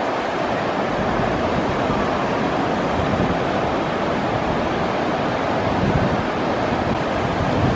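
Ocean surf breaking and washing up a sandy beach in a steady rush, with wind buffeting the microphone in low rumbles.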